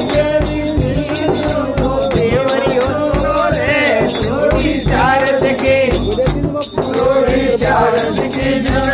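Voices singing a Holi dhamaal folk song to a steady beat on a large frame drum (chang), with a rattling percussion keeping the rhythm.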